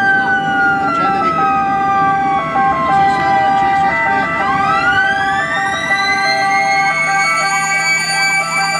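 Several ambulance sirens sounding together. A two-note siren alternates steadily, while a wail siren slides slowly down in pitch for about four seconds and then climbs back up. A fast warbling yelp joins near the end.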